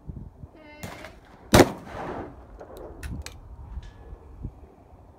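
A single shotgun shot fired at a clay target, loud and sharp, about a second and a half in, with a brief echo trailing after it.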